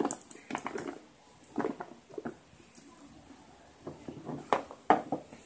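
A cardboard phone box being handled and opened by hand: short scrapes, taps and knocks come in three clusters, the loudest near the end as the lid comes off the inner tray.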